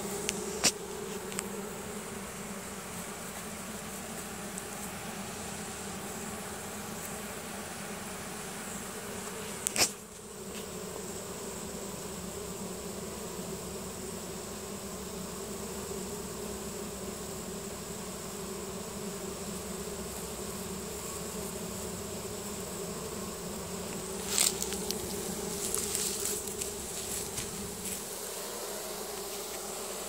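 Honey bee swarm buzzing as it marches into a hive box: a steady low hum. A few sharp taps cut through it, the loudest about a third of the way in.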